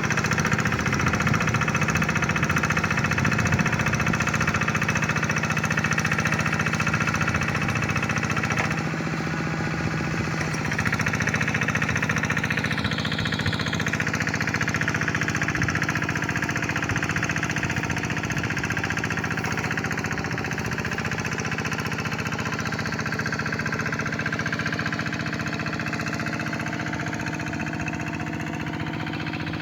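Two-wheel hand tractor's engine running steadily with a knocking beat while ploughing a wet rice paddy.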